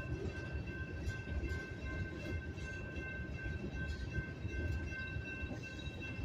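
Freight cars of a Union Pacific manifest train (covered hoppers and gondolas) rolling very slowly over a grade crossing, with a steady low rumble from the wheels and rails. A steady high ringing tone runs over the rumble.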